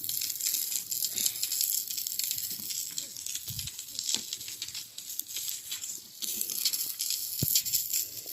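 Maandazi dough deep-frying in hot oil: a steady high sizzle with many small crackles and pops.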